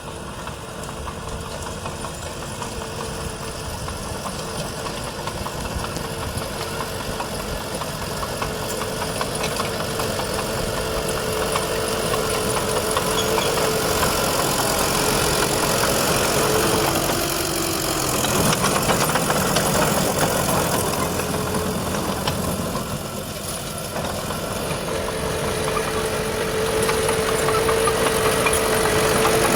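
Old Furukawa bulldozer's diesel engine running steadily with a high whine over it, getting gradually louder. About halfway through, the whine drops out briefly and the engine note changes, then the whine returns.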